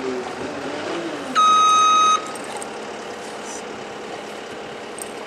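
A single steady electronic beep lasting under a second, about a second and a half in, over steady outdoor background noise; a low hum that wavers in pitch, like a vehicle engine, fades in the first second.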